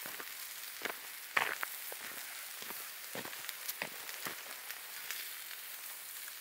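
Meat sizzling in a frying pan over a wood campfire: a steady high hiss with scattered sharp pops and crackles, the loudest about a second and a half in.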